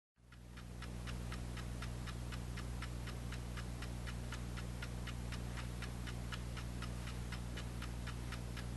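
The SPICA transistor radio alarm clock's clock ticking steadily, about four to five quick ticks a second, over a low steady hum.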